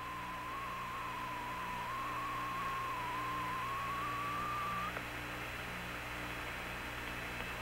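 Apollo 11 air-to-ground radio link noise: steady hiss and hum, with a wavering whistle-like tone that stops about five seconds in. A faint pulsing about twice a second runs underneath.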